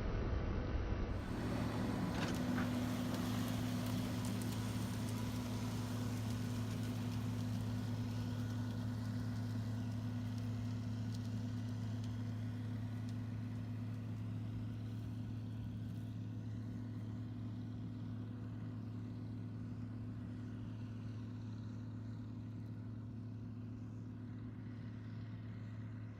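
Agco Star 8360 tractor's engine running steadily under load as it pulls a Balzer slurry tank injecting liquid manure, a constant low drone that slowly fades.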